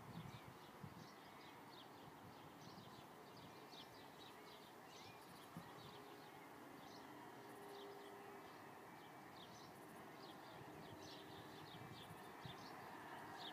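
Faint bird song: a steady run of short, high chirps, several a second, over a low, even background rumble.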